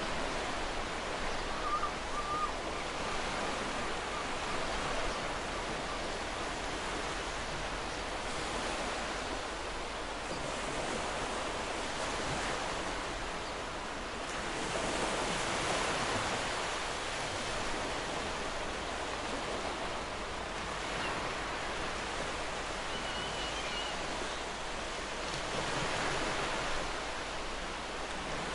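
Ocean surf: a steady wash of waves, with a wave building and breaking louder about halfway through and another near the end.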